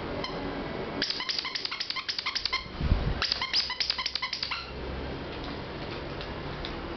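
Squeaker in a plush dog toy squeezed in quick succession: two runs of short, high squeaks, about seven a second, every squeak at the same pitch. A dull thump falls between the two runs.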